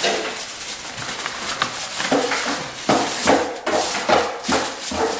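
Aluminum foil crinkling and crackling as hands press and crimp it tight over a baking pan, in irregular rustles with louder crunches about three to four seconds in.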